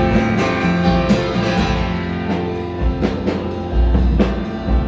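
Band music between sung lines: guitars with a drum kit, no vocals.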